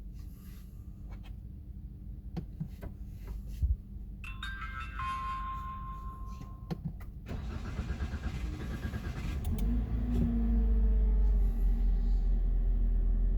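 Toyota Rush being started: a steady electronic tone for a few seconds, then the starter cranks the engine with a fast rattle for a few seconds before it catches about ten seconds in and runs steadily, louder than the cranking. This is the start that the owner describes as a daily hard start.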